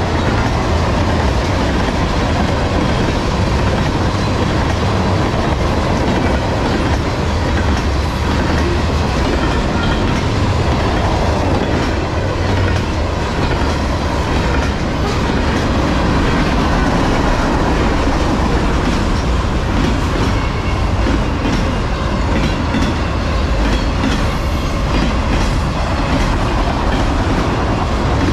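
Freight cars of a long train rolling past close by: a steady rumble of steel wheels on rail, with the clickety-clack of wheels passing over rail joints.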